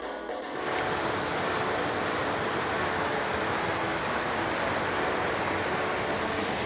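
Waterfall's falling water making a steady, even rush, which takes over from music about half a second in.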